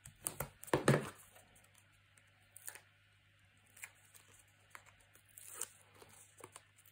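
Paper craft pieces and tape being handled on a desk: a cluster of rustles and taps in the first second, then only sparse faint ticks.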